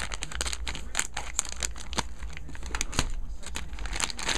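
Thin clear plastic packaging bag crinkling and crackling in irregular sharp bursts as it is handled and opened by hand.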